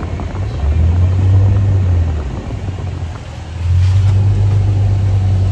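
Low rumble inside a moving car from road and wind noise, loud, swelling, easing off midway and swelling again.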